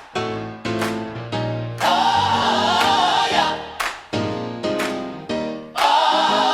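Gospel song intro: a choir singing held chords, twice, alternating with struck chords that die away.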